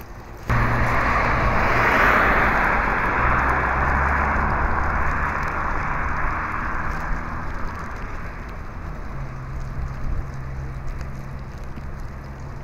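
Street traffic on a wet road: a motor vehicle's engine running low and steady under a hiss of tyres and spray. It starts abruptly about half a second in, is loudest around two seconds in, then slowly fades.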